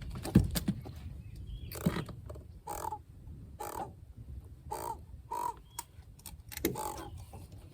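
Crow cawing, a series of short harsh caws about one a second, with a few low knocks in the first second.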